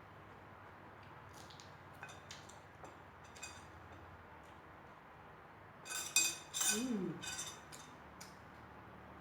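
Cutlery clinking against dishes during a meal: a few light clicks, then a cluster of louder clinks about six seconds in, with a short falling vocal sound among them.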